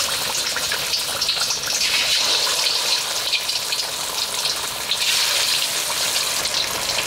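Masala-coated rohu fish pieces deep-frying in hot oil in a kadhai: a steady sizzle with fine crackles throughout.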